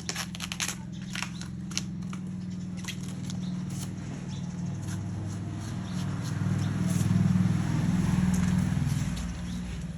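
Sharp crackling snaps of a bamboo shoot's sheath being peeled, mostly in the first two seconds. Under them runs a steady low hum that swells to its loudest in the second half.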